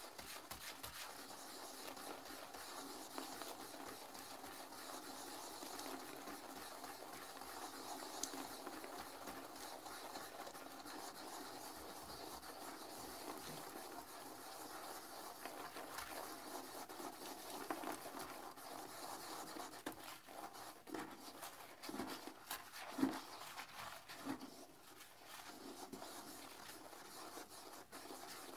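Toilet brush scrubbing a porcelain toilet bowl through sudsy cleaning-solution water: a continuous swishing and scrubbing of bristles against the bowl, with a few louder, sharper strokes about three-quarters of the way in.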